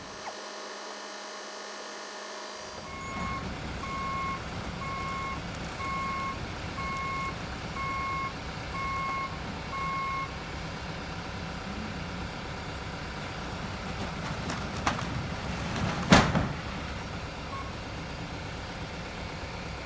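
Flatbed truck backing up, its reversing alarm beeping about once a second for several seconds over the running engine. Later a single loud thud as the bundled roof trusses slide off the tilted deck onto the street.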